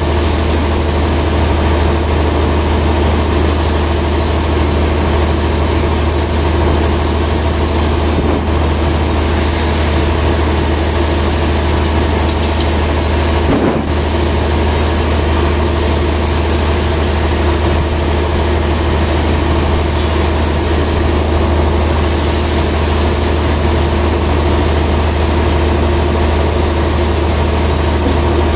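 Sawmill machinery running steadily without cutting: a loud, constant engine hum over a deep drone, briefly broken about halfway through.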